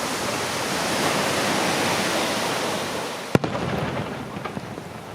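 Pirotecnia Martí aerial fireworks: a dense crackling hiss that swells and then fades over the first three seconds, one sharp bang a little over three seconds in, then scattered lighter crackles.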